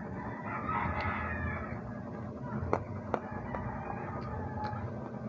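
A faint, drawn-out animal call lasting about a second and a half near the start, followed by a few light, sharp clicks.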